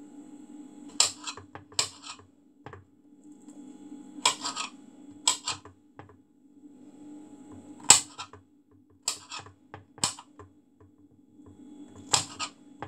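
Kitchen knife chopping red pepper on a chopping board: a dozen or so sharp, irregular knocks, some in quick pairs, the loudest about eight seconds in, over a steady low hum.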